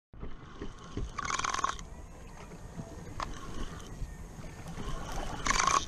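Spinning fishing reel being cranked, its handle turning steadily, over a steady background of wind and water. There are two short hissy bursts, about a second in and again near the end.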